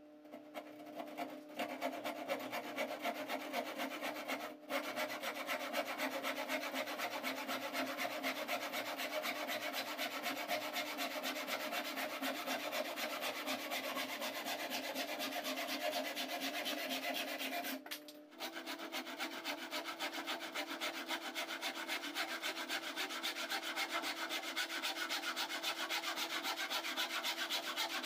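Hand saw cutting through plywood with quick, steady back-and-forth strokes. The sawing breaks off briefly about four and a half seconds in and again around eighteen seconds.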